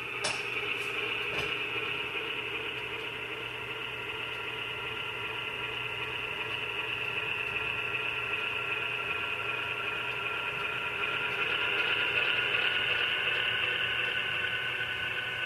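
Model GE B23-7 diesel locomotive's QSI sound decoder playing a diesel engine running sound through its small onboard speaker, steady and swelling somewhat louder about two-thirds of the way through. A couple of sharp clicks sound in the first second and a half.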